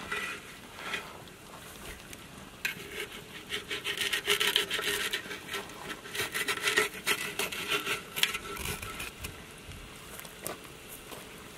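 Rough rubbing and scraping of a wet cloth bundle of whole chickens dragged against the rim of a large aluminium cooking pot, a rasping rustle that grows loudest from about three seconds in and eases off before the end.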